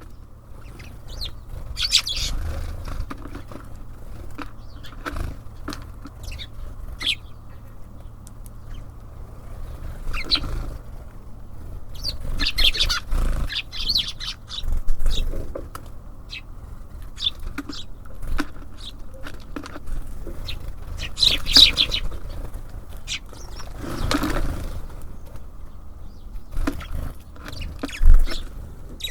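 Tits and sparrows at a bird feeder: scattered short high chirps and calls, with wing flutters and dull knocks as birds land and feed. A single low thump near the end is the loudest sound.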